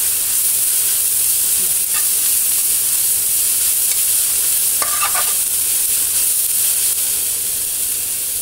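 Chopped leafy greens sizzling in a hot metal frying pan with a steady hiss, stirred with a spatula that clatters against the pan now and then, most clearly about five seconds in.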